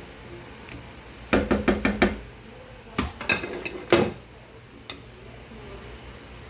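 Kitchen utensils and dishes clattering: a quick run of knocks and clinks about a second in, then several more single knocks.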